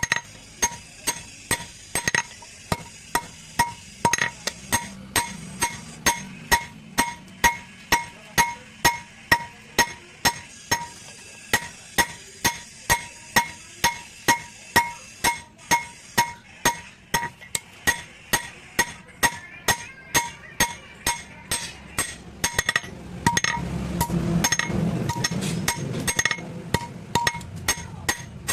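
Blacksmith's hammer beating hot steel on an anvil while forging a sickle blade: steady, even blows about two to three a second, each with a bright metallic ring.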